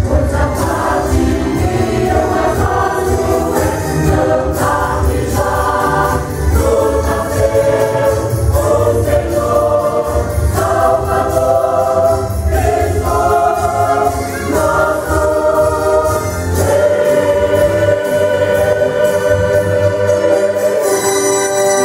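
Mixed church choir singing a Christmas song in Portuguese, with lines ending on "Salvador" and "Rei". Near the end the choir holds one long final note for several seconds.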